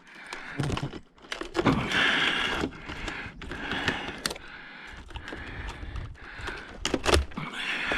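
Rustling, scraping and scattered clicks of hands and small snips working at wires and parts inside a dishwasher being scrapped, in bursts rather than one steady sound.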